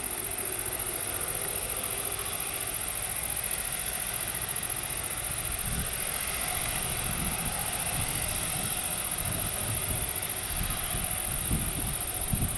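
Steady broad rush of distant jet aircraft engine noise over a constant high hiss, with low irregular wind buffeting on the microphone growing from about halfway through.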